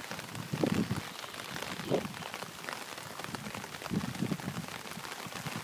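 Steady rain falling on the river surface, an even patter of many small drops. A few short, dull, low thuds stand out about half a second in, near two seconds and around four seconds.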